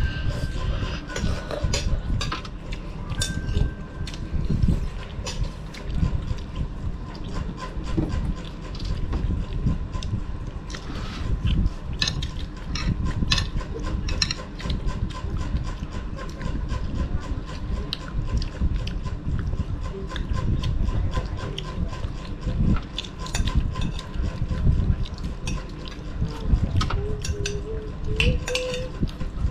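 Eating sounds at a meal: metal spoons clink and scrape against plates and a metal tray in frequent short clicks, with chewing and mouth noises, over a constant low rumbling background.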